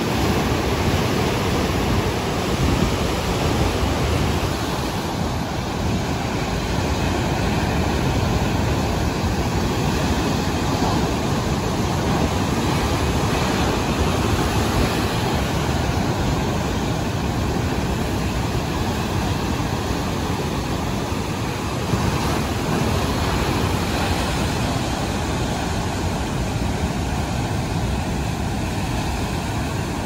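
Rough sea surf breaking and washing in foam over a rocky shore: a loud, steady rush of water noise that swells and eases slightly with the waves.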